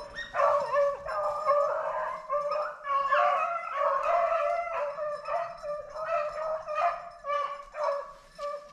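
A pack of rabbit hounds baying on the trail of a rabbit, several dogs calling at different pitches in quick, overlapping bays, thinning out near the end.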